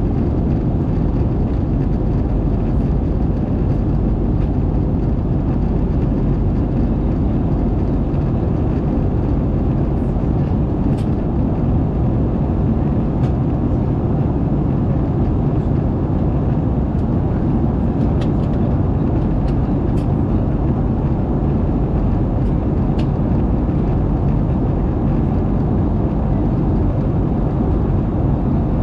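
Steady roar inside the cabin of an Airbus A220 in flight: its Pratt & Whitney PW1500G geared turbofan engines running and the rush of air over the fuselage, heard from a seat over the wing.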